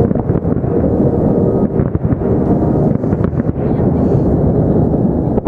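Large aerial firework shells bursting in rapid succession: a continuous rumble of booms with many sharper cracks through it.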